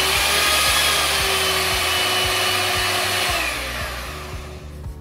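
Electric hand mixer running at full speed with its beaters spinning in the air, a steady whirring whine; about three and a half seconds in it is switched off and winds down, the pitch falling as it fades.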